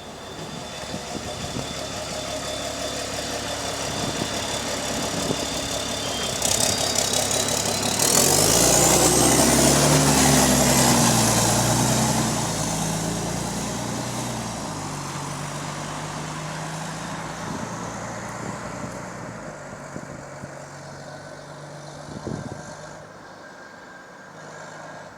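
Engine of Go-Ahead London bus E264, which has an exhaust leak, heard on board as the bus pulls away. The engine builds with a whine that climbs steeply in pitch and is loudest about ten seconds in, then eases back to a steadier run and quietens near the end.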